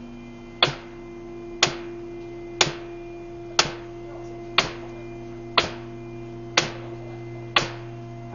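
Sharp clicks repeating evenly once a second, each with a short ringing tail, over a steady mechanical hum.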